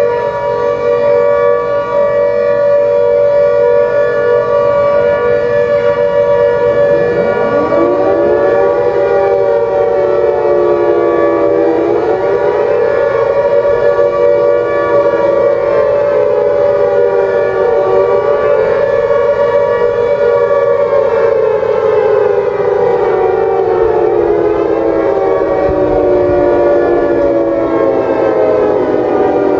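Civil defence air-raid sirens sounding an attack warning: one holds a steady tone, and about seven seconds in a second siren winds up and then wails slowly up and down over it.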